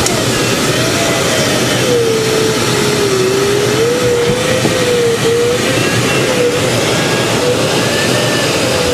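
Steady, loud rush of airflow over a glider's canopy in flight, with a continuous electronic tone from the audio variometer slowly wavering up and down in pitch.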